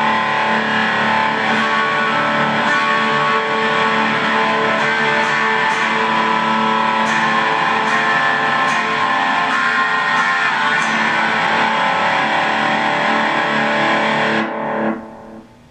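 Electric guitar played through a Boss Katana Mini amplifier with everything turned all the way up and the delay on: loud, sustained playing that stops about a second before the end and dies away.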